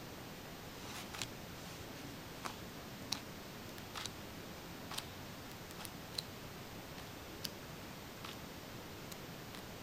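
Glossy pages of a large art book being turned by hand: short, sharp paper flicks and taps, roughly one a second, over a steady background hiss.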